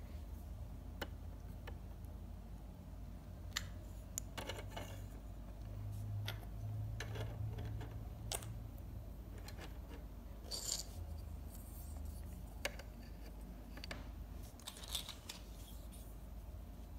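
Scattered light clicks and taps of small plastic doll bath accessories being picked up and set down on a toy bathtub's slatted caddy, over a low steady hum.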